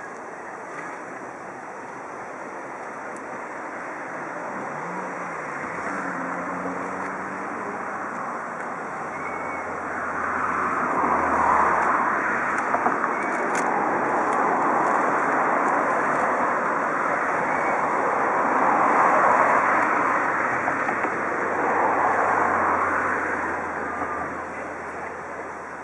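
Steam hissing from the DR Class 18 201 steam locomotive, a steady rush that swells louder from about ten seconds in and eases near the end, with a low hum underneath.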